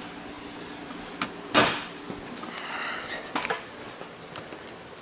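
A few sharp knocks and clicks, the loudest about a second and a half in, with smaller clicks around three and a half seconds in.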